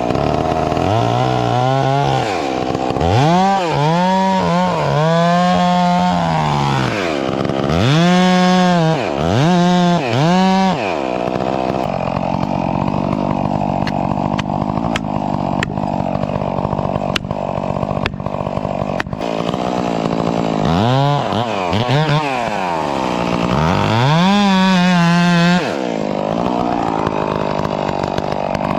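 Stihl MS 661 two-stroke chainsaw revved up and down in repeated short bursts, then run more steadily with scattered clicks, then revved in bursts again, as it shaves bark off the base of a cedar to expose the wood beneath.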